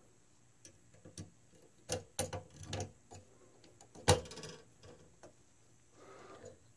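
Clicks and light knocks of an aluminum mounting plate being handled and fitted onto a plastic 3D-printed extruder carriage, with one sharper knock about four seconds in.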